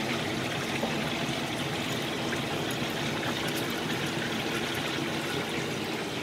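Mackerel steaks frying in oil in a pan, giving a steady sizzle.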